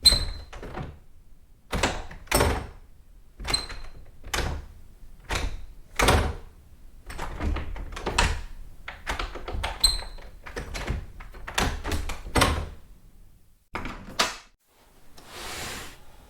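Doorknobs being turned and doors opened over and over: irregular metal latch clicks and knocks, some with a short high ringing ping. Near the end comes a brief scrape of something dragged over a wood floor.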